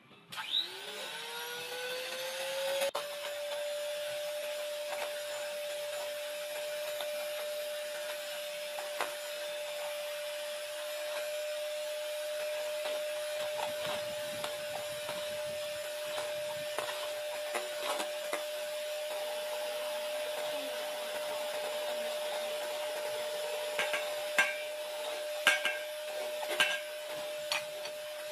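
Electric hand mixer beating egg whites to a froth in a stainless steel bowl. The motor whine rises in pitch as it starts up about half a second in, then holds steady, with a few sharp clicks near the end.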